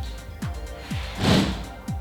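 Electronic background music with a steady kick-drum beat, about two beats a second, and a short whooshing swell about a second in that is the loudest moment.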